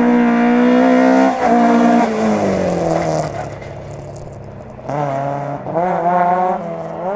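Rally car engine held at high revs with a quick break about a second in, then the revs falling away and quietening. About five seconds in it accelerates hard again, the revs climbing, dropping at a shift and climbing once more.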